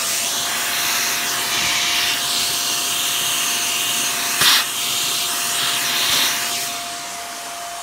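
Handheld cordless vacuum running steadily, a hissing suction with a constant motor whine, as it picks up fine sanding dust from ceramic model bricks. A brief louder rush of suction about four and a half seconds in, and the level eases a little near the end.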